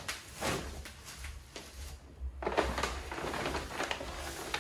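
Paper shopping bag and plastic bubble wrap rustling and crinkling as wrapped vases are lifted out, with a brief lull about two seconds in.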